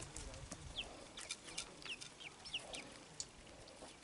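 Young chickens peeping and clucking softly while they feed: a scatter of short, high chirps, some sliding down in pitch, over a faint background.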